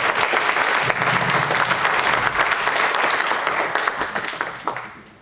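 Audience applauding, dense and steady, then dying away in the last second or so.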